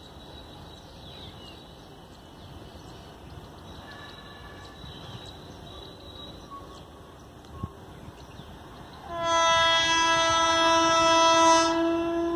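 Horn of an approaching WAM-4 electric locomotive: one long, steady blast starting about nine seconds in.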